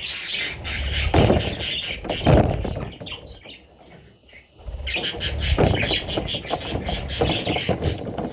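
Parrots calling in a dense, busy chatter of shrill calls over a low rumble, easing into a quieter lull about three seconds in before picking up again near five seconds.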